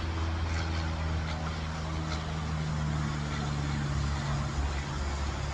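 A motor or engine running steadily with a low, even hum.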